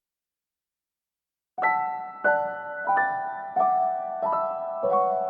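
Piano music begins after about a second and a half of silence, with notes struck at a slow, even pace, each ringing and fading.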